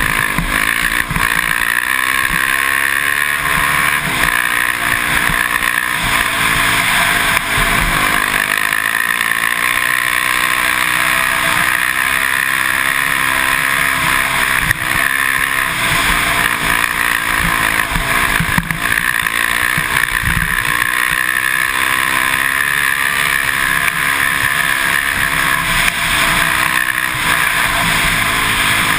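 Can-Am DS450X MX quad's single-cylinder four-stroke engine running hard at speed, its pitch rising and falling as the rider works the throttle.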